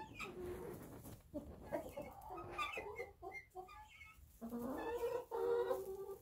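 Chickens clucking: a run of short calls, then a longer drawn-out call about four and a half seconds in.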